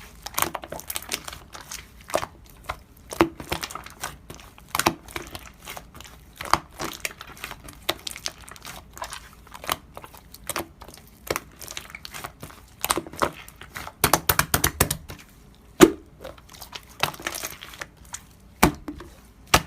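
Slime being pressed and worked by hand, giving irregular sticky clicks and crackling pops, with one sharper pop about 16 seconds in.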